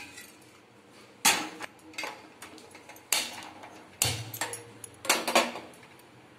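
Sharp metallic knocks and clunks, about one a second with a quick cluster near the end, as an aluminium pressure cooker is handled and set down onto the pan support of a steel gas stove.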